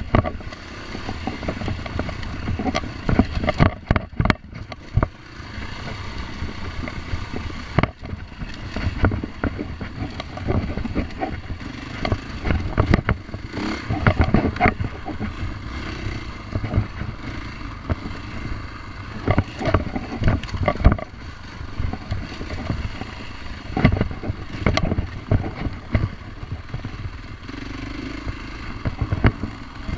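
Husqvarna dirt bike engine running as the bike is ridden over a rough trail, the throttle opening and closing so the engine note rises and falls, with frequent sharp knocks and rattles from the bike jolting over bumps.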